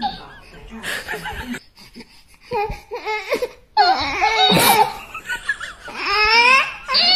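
Baby laughing in bursts of pitched, rising-and-falling laughs, loudest about four seconds in and again near the end.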